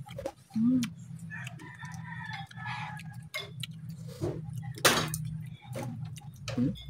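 A rooster crowing in the background, a drawn-out call that starts about a second and a half in, over a steady low hum. Sharp clicks and clinks of a meal, the loudest about five seconds in.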